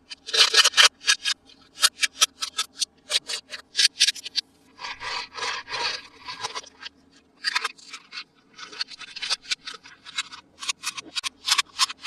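Toy packaging being handled and opened: a quick, irregular run of sharp crinkles and scratches, with a few longer stretches of rubbing and scraping.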